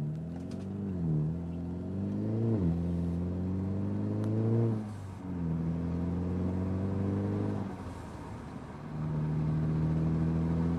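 Mercedes-Benz CLA250's turbocharged four-cylinder engine accelerating through the gears. The engine note climbs and drops at two quick shifts, then climbs again and falls away as the throttle closes about five seconds in, with a short hiss of the Forge blow-off valve venting boost. The car then holds steady revs, easing off again near eight seconds.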